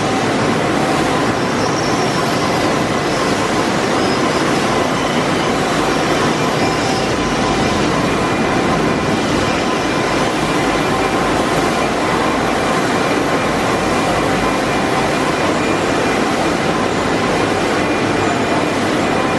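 Paper-processing production machinery running steadily: a loud, constant mechanical noise with a few faint steady whining tones on top.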